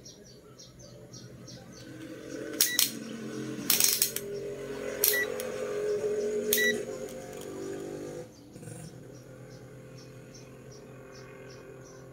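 Peakmeter PM18C digital multimeter's rotary selector dial being turned by hand, with clicks and three short beeps from the meter. Insects ticking rapidly in the background.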